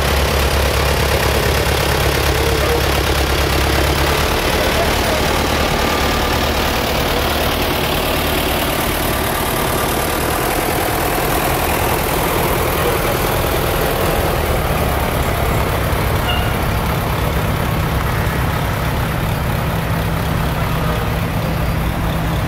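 Engines of slow-moving parade vehicles passing close by. A farm tractor's engine hums steadily for the first few seconds, then fades. A vintage fire engine and the fire trucks behind it take over, their engines running at low speed, with no sirens sounding.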